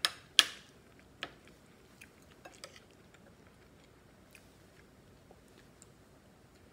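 A metal spoon clicks sharply against a ceramic plate twice at the start and again about a second in, then eating continues with faint chewing and a few light spoon taps.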